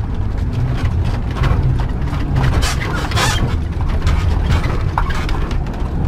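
Motorhome driving on a rough road, heard from inside the cab: a steady low engine and road rumble with frequent short rattles and knocks.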